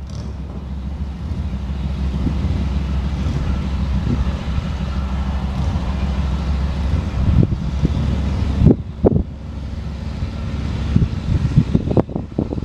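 Wind buffeting the camera microphone: a steady low rumble that drops off suddenly about two-thirds of the way through, followed by a few short sharp gusts or knocks near the end.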